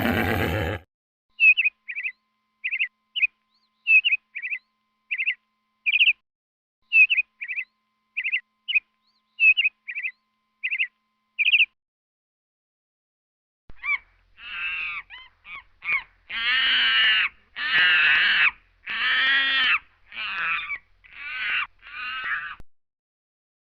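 A bird chirping in short, sharp, high notes, irregularly about twice a second for some ten seconds. After a short pause comes a run of about a dozen louder, longer calls, most under a second each, of another animal, crow-like caws.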